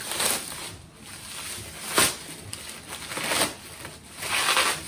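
Plastic bubble wrap crinkling and rustling in several bursts as it is pulled and torn off a box.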